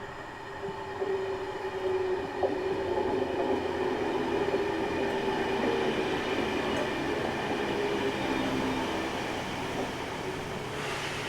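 A Chiltern Railways Class 68-hauled Mk3 train running, a steady rumble with several held tones that swells about a second in. A brighter hiss comes in near the end.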